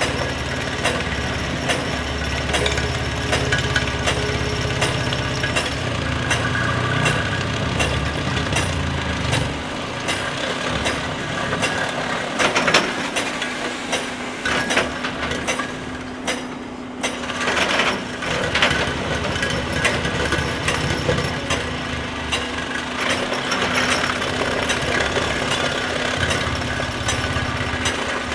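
SEKO SVR600 excavator-mounted vibratory ripper working rock: a steady hum under dense, irregular knocks and cracks of breaking rock. A heavy low rumble is strong through the first third and returns near the end.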